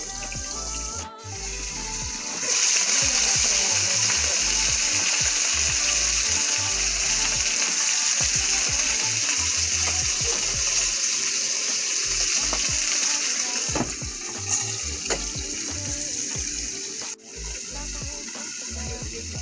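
Breaded fish fillets frying in hot oil: a steady sizzle that comes in about two seconds in and eases off in the last few seconds, over background music.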